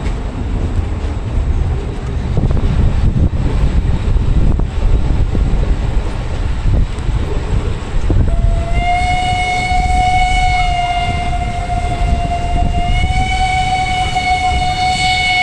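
Historic train running, its wheels rumbling and clattering on the track. About halfway through, the whistle of the Prussian T3 steam tank locomotive sounds one long steady blast lasting several seconds, fading briefly and swelling again before the end.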